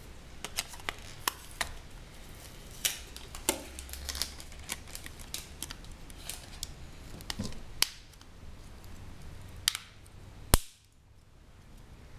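Handling of a smartphone and its plastic parts: a string of short, sharp plastic clicks and taps at irregular intervals, with one loud click about ten and a half seconds in.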